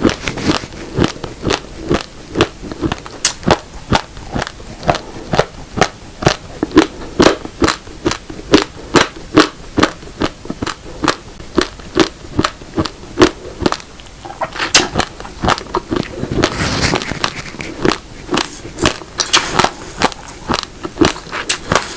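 Raw uncooked rice grains, black rice mixed with red rice, being crunched between the teeth close to the microphone: sharp, hard cracks about two or three a second, steady chewing. Around the middle there is a short stretch of denser rustling crackle.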